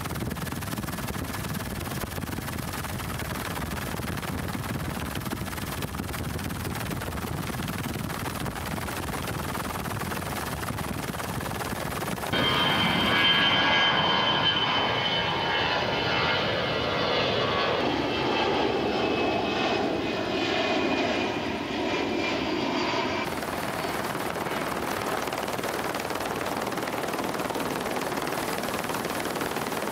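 The BelugaXL's twin Rolls-Royce Trent 700 turbofans running, heard across the airfield as a high jet whine that comes in abruptly about twelve seconds in and cuts off about ten seconds later. Before and after it there is a steady rushing noise.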